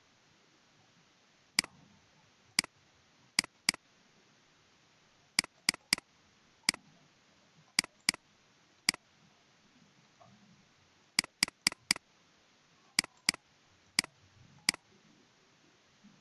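Computer mouse button clicking: about nineteen sharp clicks, some single and some in quick runs of two to four, over a faint steady hiss.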